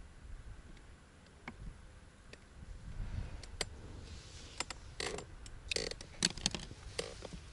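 Scattered light clicks and small rattles of fishing tackle being handled, sparse at first and coming thick and fast in the second half, over a faint low rumble.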